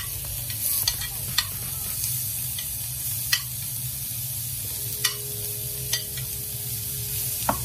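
Pigeon breasts sizzling steadily in hot oil in a frying pan, with a series of sharp clicks as a metal spoon taps and scrapes chopped onion off a plate into the pan.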